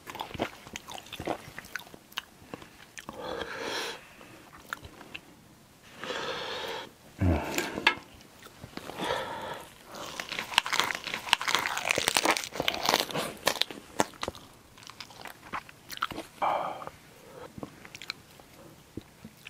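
Close-miked chewing and biting of grilled pork steak and a fresh lettuce wrap, with irregular crunches.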